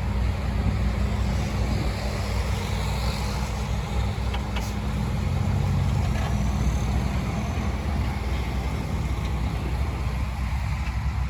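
Heavy diesel engine of earthmoving machinery running steadily, a continuous low drone.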